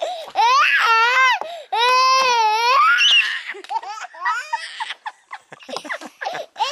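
A two-year-old toddler laughing in high-pitched squeals: a quick run of laughs about half a second in, then one long held squeal around two seconds in, followed by shorter, softer sounds.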